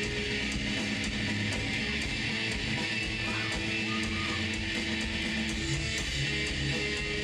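Death metal band playing live, with electric guitars to the fore in a dense, steady wall of sound.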